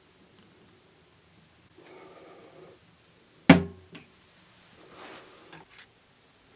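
A single sharp knock about halfway through, with softer rustling and a small click around it: a hand handling the ash cabinet near its glass shelves.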